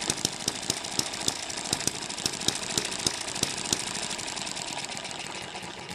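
M94 hit-and-miss model engine running: a rapid mechanical clatter with louder firing beats at uneven intervals. It grows a little quieter near the end.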